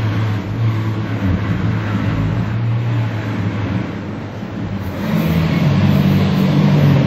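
Mercedes-Benz C-Class W205 engine running, heard from inside the car. It holds a steady low hum, then rises a little in pitch and grows louder about five seconds in.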